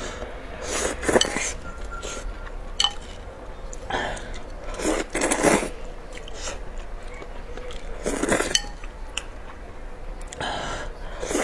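Close-miked slurping of noodles from a bowl of spicy broth, in several loud bursts a few seconds apart, with short clicks of chopsticks against the bowl between them.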